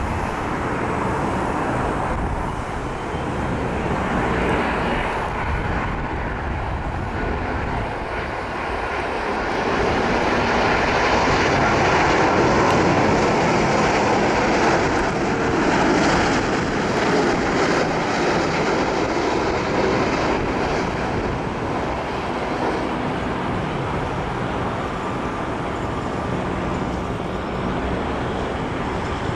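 Boeing 787-9 Dreamliner on final approach, its GE GEnx-1B turbofans giving a steady jet rumble and whine. The sound swells to its loudest around the middle as the airliner passes close by, then eases off as it flares over the runway.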